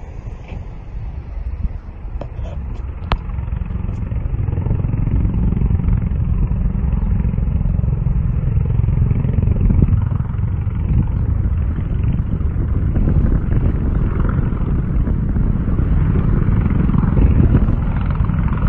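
Two Bell Boeing MV-22B Osprey tiltrotors flying past with a deep rumble from their proprotors and engines. It grows louder over the first few seconds and then holds steady.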